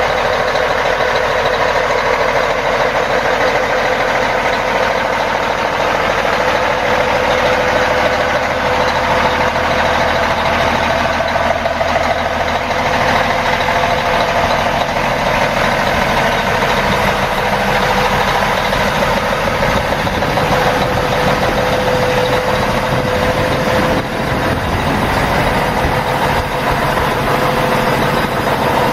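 Cummins ISX inline-six diesel engine of a 2007 Volvo VNL630 semi tractor idling steadily.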